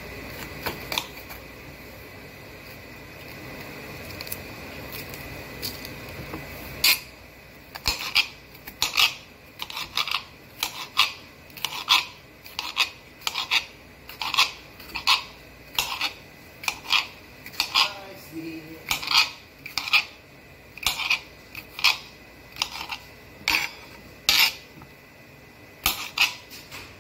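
Chef's knife slicing an orange sweet pepper on a hard stone cutting surface: a few light taps at first, then from about seven seconds in a steady run of sharp knife strikes, about one and a half a second, over a faint steady hum.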